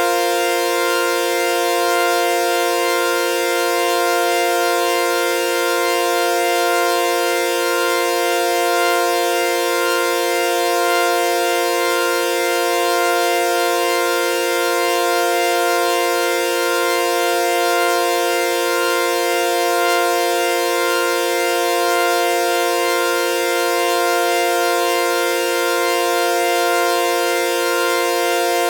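Synthesized sawtooth-wave chord, F suspended fourth (F, B-flat, C), held as one steady unbroken drone with a slow gentle swell in loudness about every two seconds.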